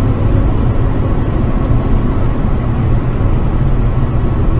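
Steady rumble of a car driving along a highway, heard from inside the cabin through a dash cam's microphone: engine and tyre noise, deep and even.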